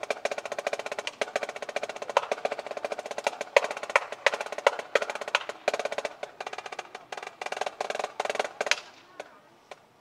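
Marching snare drum played solo: very fast rolls and rudiments with loud accented strokes, stopping abruptly about nine seconds in, followed by a few light ticks.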